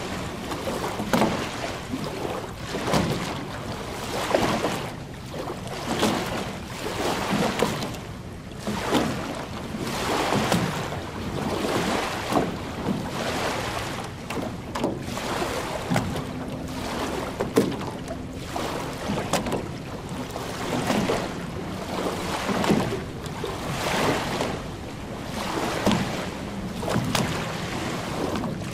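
Small lake waves lapping and washing onto a sandy shore, a soft splash every second or two, with wind on the microphone.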